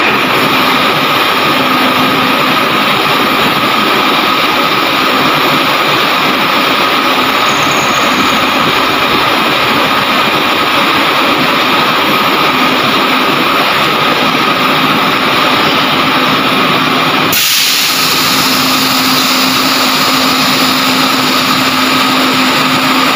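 Engine of the crane lifting the steel plates, running steadily with a constant hum. About 17 seconds in, its sound changes abruptly and turns brighter and hissier.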